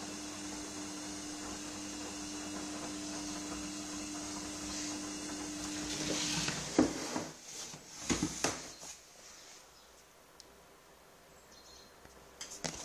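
Gorenje front-loading washing machine on a 95 °C wash: the drum motor hums steadily while the wet, foamy laundry tumbles. The hum stops a little past halfway, followed by a few knocks and then a quieter pause, as the drum halts between turns.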